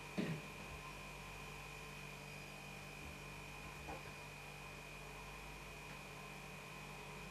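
A kitchen wall-cabinet door swinging open: a short sound falling quickly in pitch about a quarter of a second in, then a faint click near four seconds, over a steady electrical hum.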